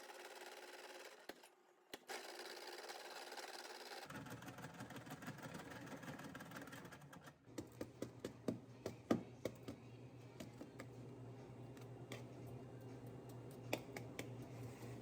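Faint irregular clicks and taps over a steady low hum, with a cluster of sharper clicks in the middle.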